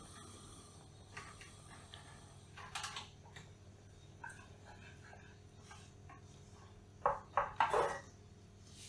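Kitchen utensils knocking and clinking against dishes: a short knock about three seconds in, then three or four louder knocks in quick succession near the end.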